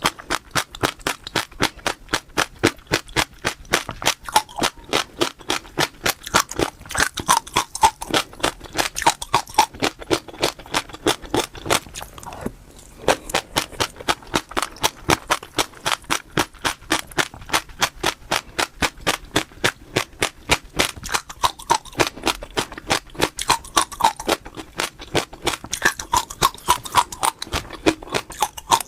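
Close-miked chewing of crunchy food, a steady run of crisp crunches at about four a second, pausing briefly about twelve seconds in.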